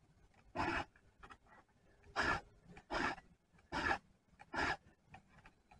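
Round chainsaw file rasping across the cutters of a full-house saw chain: five even sharpening strokes, about one every 0.8 s.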